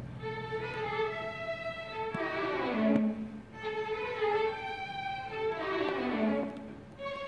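Symphony orchestra strings playing a soft passage of falling phrases, each sliding down in pitch, repeated about every three seconds.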